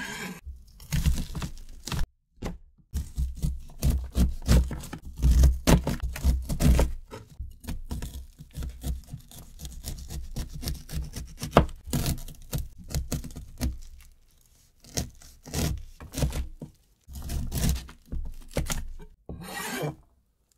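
Chef's knife cutting kernels off an ear of super sweet corn: the blade scrapes down the cob and knocks on the cutting board in a rapid run of short cuts, with a few brief pauses.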